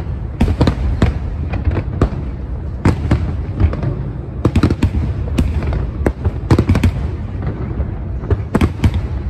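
Aerial fireworks shells bursting in quick, irregular succession: many sharp bangs and crackles over a continuous low rumble.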